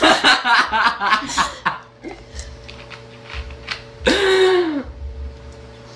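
Voices and laughter for the first second and a half, then a single loud burp from a small girl about four seconds in, lasting under a second with its pitch dropping at the end.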